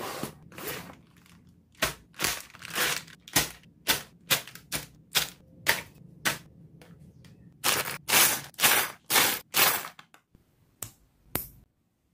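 A cardboard box of building bricks being opened and its sealed plastic parts bags handled. It makes a string of sharp crackling rustles about one or two a second, with a few longer crinkles near the end, then stops.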